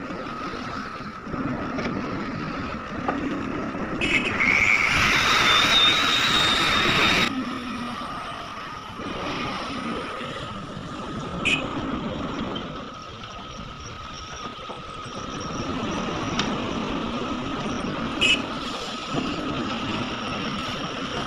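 Heavy earthmoving machinery running steadily. About four seconds in, a loud hiss with a high whine sets in, lasts about three seconds and cuts off suddenly. Two short sharp knocks come later.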